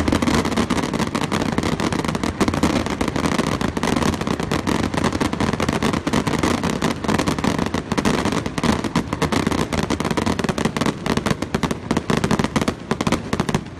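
Aerial fireworks barrage: a dense, unbroken stream of bangs and crackles from many shells bursting in quick succession, thinning out right at the end.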